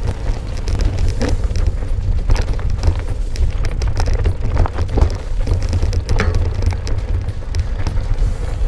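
Heavy wind buffeting on the microphone, with the irregular clatter and crunch of an e-bike's tyres rolling over loose stones and scree.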